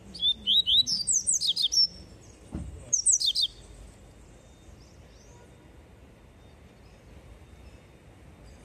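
Caged papa-capim (yellow-bellied seedeater) singing its tui-tui song: a fast run of sharp, sliding high whistled notes for about two seconds, then a second short burst about three seconds in.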